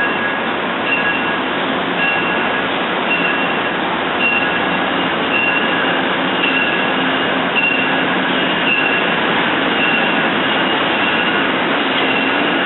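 A train running through a station: steady rail and wheel noise, with a short high tone repeating about once a second.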